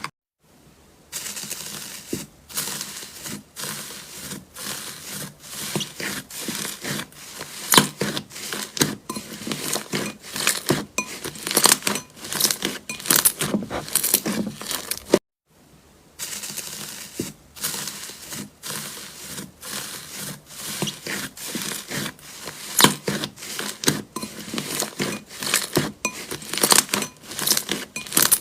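Slime being squeezed, poked and stretched by hand, with quick irregular crackling clicks and pops. The sound breaks off briefly right at the start and again about halfway through.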